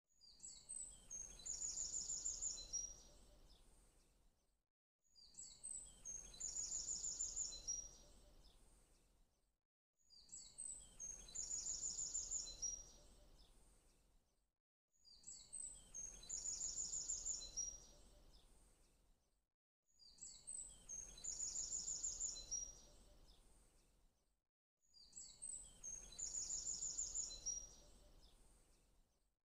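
Looped birdsong background track: the same phrase of high chirps and a quick trill repeats about every five seconds, with a brief silence between repeats.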